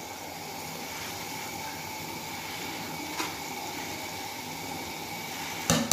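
Rice boiling in beef stock in a large aluminium pot: a steady bubbling hiss as the liquid cooks down into the rice. A light tick comes about three seconds in, and sharp knocks of a metal spoon against the pot come right at the end.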